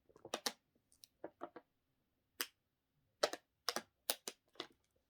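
Computer keyboard being typed on: irregular keystrokes in short clusters with pauses between.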